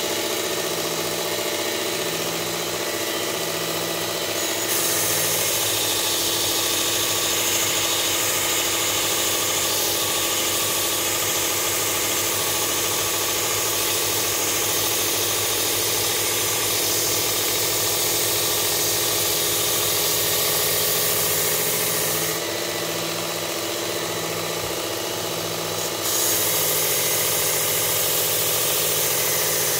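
Work Sharp Ken Onion belt sharpener with the blade grinding attachment running a medium belt at low belt speed, its motor humming steadily. About five seconds in a knife blade is pressed to the belt and ground with a steady hiss; the blade comes off for a few seconds about three-quarters through, then grinding resumes.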